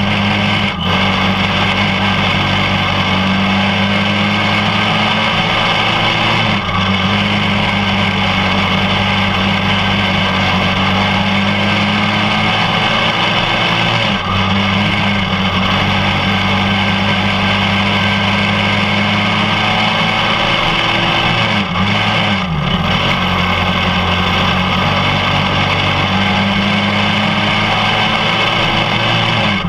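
Racing kart engine running hard at high revs, heard from on board, its pitch dipping briefly about every seven seconds before picking up again, most deeply about 22 seconds in.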